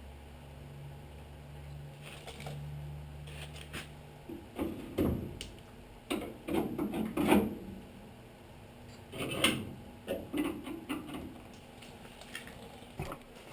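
Metal parts being handled and knocked about, in several short clusters of knocks and scrapes. A low steady hum stops about four seconds in.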